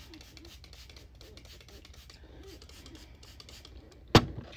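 Makeup brush bristles rubbing and scratching in many quick short strokes over wig lace at the hairline. Near the end comes a single sharp knock.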